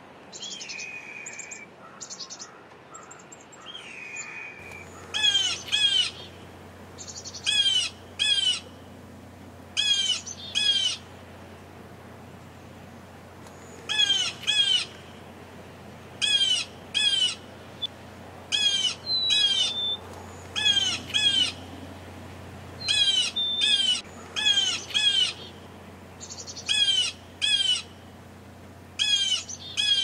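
Blue jays calling: loud, harsh, downward-slurred jeers, mostly in pairs, repeated every two to three seconds. Softer chirping comes first, for about the first four seconds.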